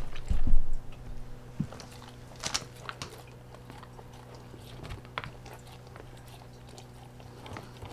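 A husky-malamute eating chunks of minced-meat roll from a ceramic bowl: biting and chewing with scattered short clicks, after a low thump about half a second in.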